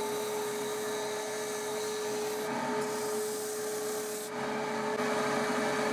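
Record Power BDS150 belt and disc sander running, with a wooden wedge pressed against the moving abrasive belt to grind its angle steeper. A steady motor hum under the rasp of wood on the sanding belt, which changes in tone a couple of times as the piece is worked.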